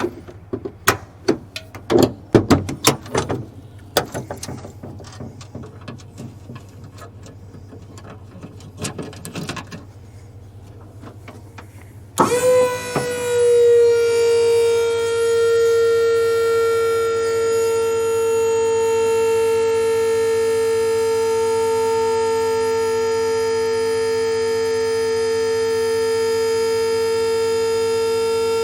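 A few knocks and clatter, then about twelve seconds in the electric hydraulic pump of a dump trailer starts with a slight drop in pitch and runs with a steady whine, raising the bed to tip the load.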